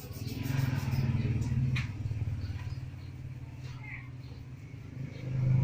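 A low motor rumble with a fast, even pulse that swells, eases off and swells again near the end.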